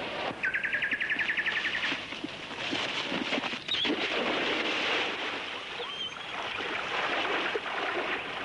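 Splashing of a dog running and wading through shallow water, steady from about two seconds in. A rapid trill of about twenty high notes sounds in the first two seconds, and a couple of short high chirps come later.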